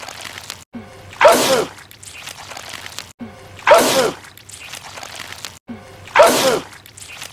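A man sneezing three times, the same sneeze repeated in a loop about every two and a half seconds. Each is a loud, sharp sneeze standing well above a quieter film-soundtrack background.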